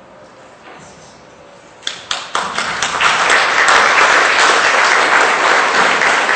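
A quiet pause, then an audience starts applauding about two seconds in: a few separate claps that quickly swell into steady applause.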